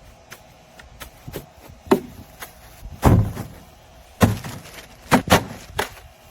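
Irregular knocks and clatters of hard objects struck together, about a dozen sharp hits, the loudest about three seconds in and again around four and five seconds in.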